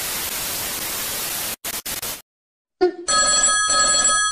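A loud burst of static hiss for about a second and a half, then a few short crackles of it. After a brief gap a mobile phone ringtone starts, steady high tones, near the end.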